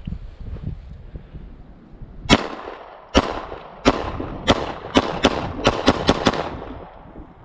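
Tristar C100 9mm pistol, a CZ75 clone, fired about ten times: the first shots come roughly a second apart, then they quicken into a fast string near the end. Each shot is a sharp crack with a short ring-out.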